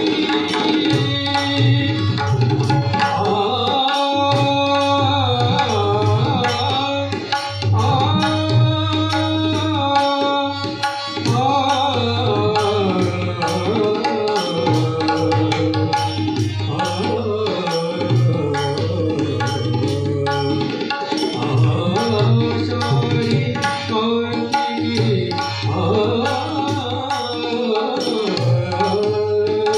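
Marathi devotional abhang music: tabla and mridang keep up a continuous rhythm under a gliding sung melody and a held drone note.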